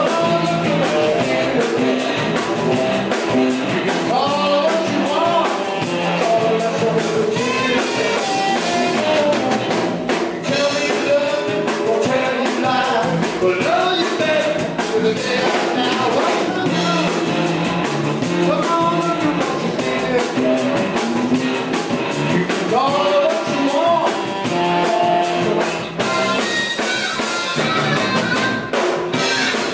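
Live blues-rock band playing: electric guitars and a drum kit, with a lead voice at the microphone over the top.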